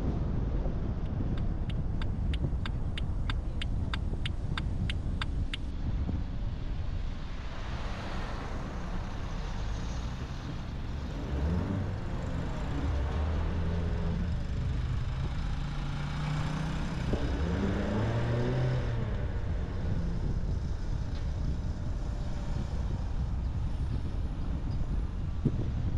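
Car driving in city traffic: steady road and engine noise. A regular ticking, about three ticks a second, runs for a few seconds near the start. Around the middle, the engine of another vehicle rises and falls in pitch.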